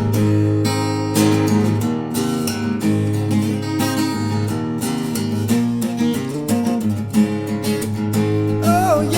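Acoustic guitar strumming chords in an instrumental passage of the song. A singing voice comes back in near the end.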